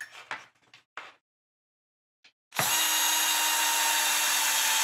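A Bosch cordless drill-driver runs steadily with a motor whine, driving a small M3 button-head screw into a plastic RC car chassis. It starts a little over halfway through, after a few light clicks of parts being handled.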